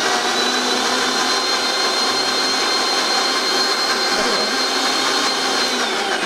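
Electric kitchen mixer grinder (mixie) running at full speed, grinding a wet paste of soaked dried red chillies and spices, with a steady high whine over a gritty churning noise. Near the end the whine falls as the motor winds down.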